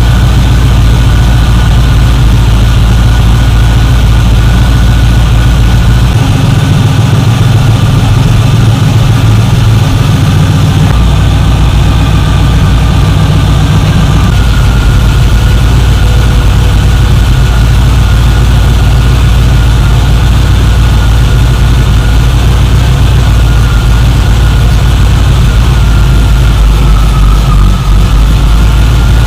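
Chevy 350 small-block V8 idling loud and steady through its headers, just fired up after being reinstalled with new gaskets. The low rumble changes briefly about six seconds in and settles back about five seconds later.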